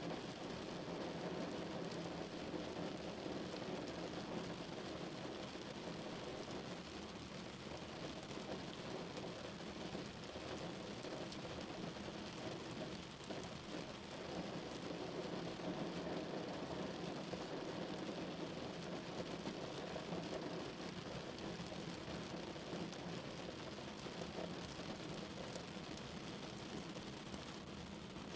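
Rain on a car roof heard from inside the cabin while driving, with tyre and road noise, a steady even hiss.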